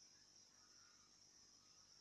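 Near silence, with a faint steady high-pitched insect chorus.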